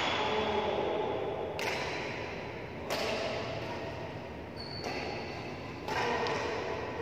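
Sharp badminton racket hits on a shuttlecock, ringing out in a large echoing hall. There is a handful of separate strikes at uneven intervals, one to two seconds apart.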